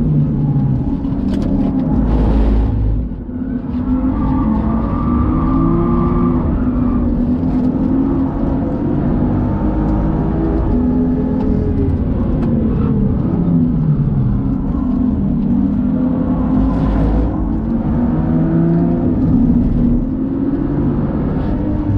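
BMW engine heard from inside the cabin, worked hard on a race track at full throttle around 5,000–6,300 rpm. Its note repeatedly rises under acceleration and drops as the driver shifts and lifts for corners, with a brief dip and rush of noise about two seconds in and again near the end.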